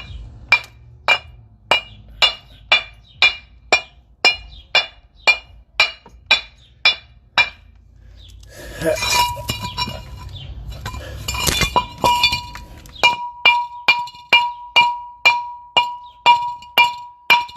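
Hammer blows on a metal brake or hub part, about two a second, each with a bright metallic ring. In the middle there are a few seconds of louder, rougher clattering. Then the steady blows resume with a ringing tone sustained behind them.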